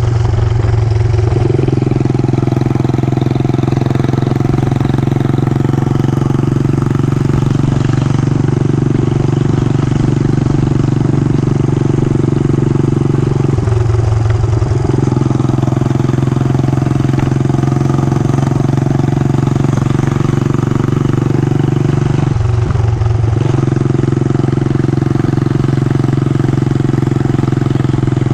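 Yamaha SR400's air-cooled single-cylinder four-stroke engine running at a steady pitch while riding, with two brief dips in the engine note partway through.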